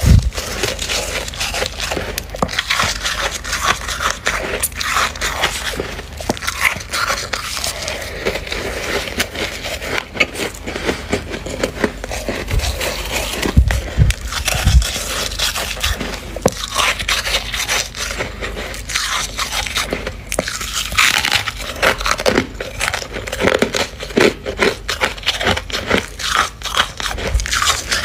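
Freezer frost being scraped and bitten, a dense, irregular run of crackling and crunching clicks, with a few dull thumps about halfway through.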